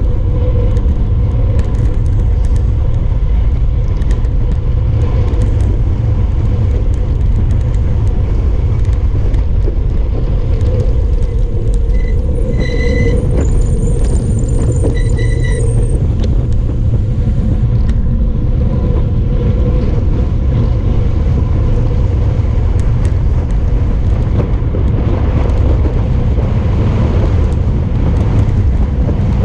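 Wind rushing over a bike-mounted GoPro during a fast road-bike descent: a loud, steady low rumble of wind buffeting the microphone. Two short high-pitched squeals about halfway through.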